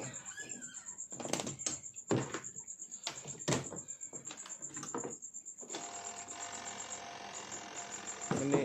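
Several sharp knocks and clattering as laundry is shifted in a twin-tub washing machine's spin-dryer drum, which had been knocking because the load sat unevenly. Past the middle a steady motor hum sets in as the spin dryer runs, over the constant high chirping of crickets.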